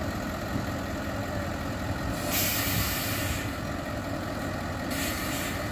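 Heavy airport crash-rescue fire truck's diesel engine idling steadily. Two hisses of released air break in over it, the first a little over two seconds in and lasting about a second, the second shorter near the end, typical of a truck's air brake system.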